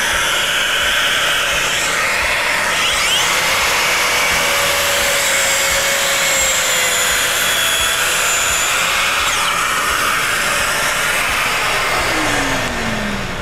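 Makita track saw running and cutting through plywood along its guide rail, with a dust extractor running on the saw's hose, a steady loud machine noise. This is a trim cut taking about a quarter inch off the sheet's edge to square it. A tone falls in pitch near the end.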